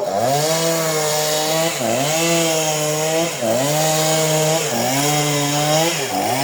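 Two-stroke chainsaw running at high revs, its pitch dipping briefly and coming back up about every second and a half.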